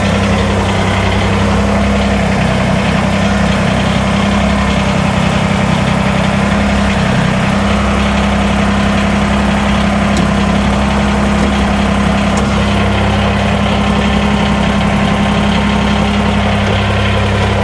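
Kubota BX23S compact tractor's three-cylinder diesel running steadily, with the PTO engaged to drive the front snowblower on a test run of its newly replaced drive chain.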